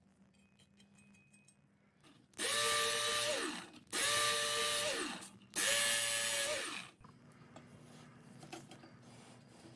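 Handheld electric knife sharpener run three times for about a second and a half each, sharpening a cleaver's steel blade: each time the motor whines up, runs with the blade grinding against the abrasive, and winds down. Faint handling noise follows.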